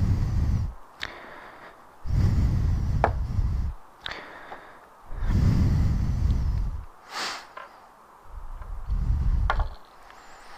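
Four low puffs of air buffeting the body-worn camera's microphone, each lasting about a second and a half and coming about three seconds apart, with a few light clicks and taps between them.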